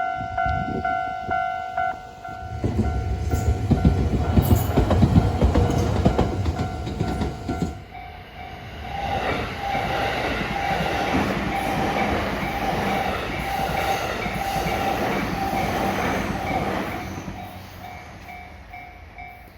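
Japanese level-crossing warning bell ringing in a rapid repeating "kan-kan" while a train rumbles loudly past. About eight seconds in it changes to another crossing whose bell rings at a different pitch over the rhythmic clatter of a passing train's wheels, fading near the end.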